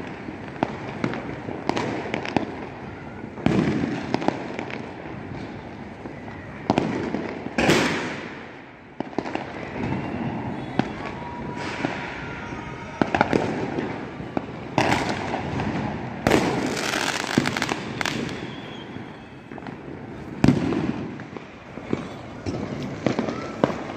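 Many fireworks going off across a city at once: irregular bangs from aerial rockets and firecrackers over constant crackling. A faint whistle is heard about halfway through.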